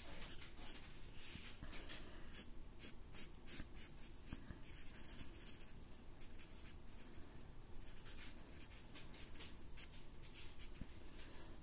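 Sharpie fine-point permanent marker drawing on paper: many short, irregular strokes of the felt tip, some in quick runs as lines are hatched in.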